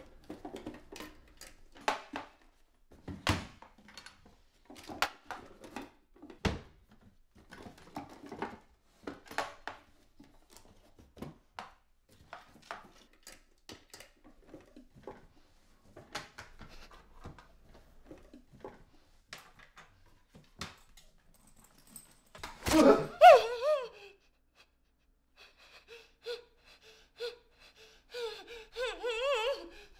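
Irregular knocks and thuds, then a loud thump about 23 seconds in together with a short, wavering, muffled cry. Near the end come wavering moans of a voice muffled by tape over the mouth.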